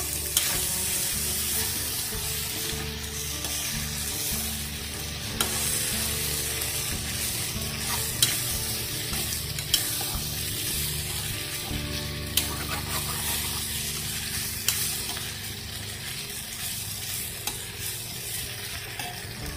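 Masala macaroni sizzling as it fries in a saucepan while a ladle stirs it, with the ladle knocking sharply against the pan every few seconds.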